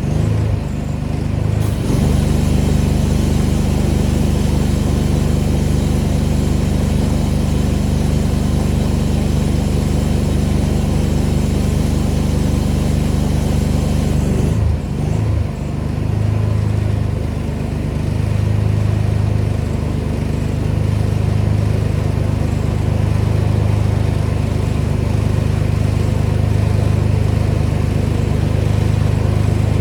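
Gas-engine pressure washer running steadily under load, its engine note holding throughout with a spray hiss above it. The sound wavers briefly about a second in and again about halfway through.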